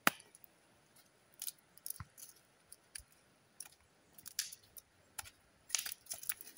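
Faint, scattered clicks and short scrapes from an old iron gate being handled and shifted.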